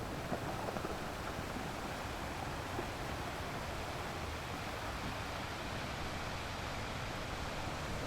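Ocean waves washing onto shore, a steady, even rushing noise.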